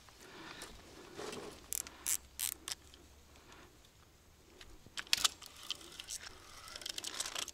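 Spinning reel being cranked, giving irregular mechanical clicking and ratcheting, with sharper clicks about two seconds in and again about five seconds in. The spool is slipping, which the angler takes for the end of the reel.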